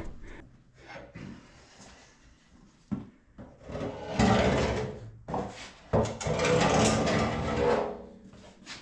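A car subframe being dragged across the floor: a sharp knock, then two long scrapes, the first about four seconds in and the second about six seconds in.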